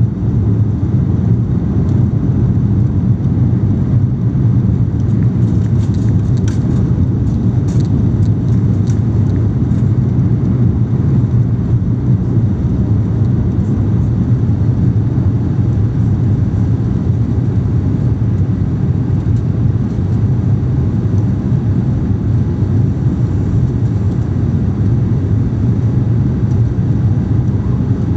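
Steady low rumble inside the cabin of an Airbus A350-941 climbing out after take-off: its Rolls-Royce Trent XWB engines and the airflow, with a few faint clicks about six to nine seconds in.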